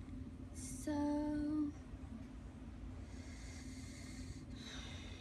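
A drawn-out spoken "so" about a second in, then soft breathing over a steady low background hum.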